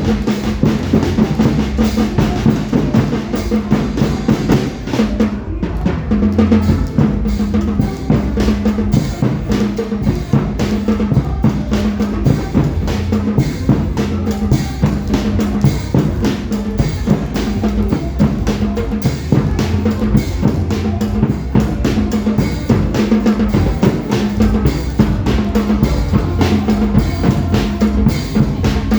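Loud drum-driven music with a steady, driving beat, the accompaniment to an adapted Hmong-style dance.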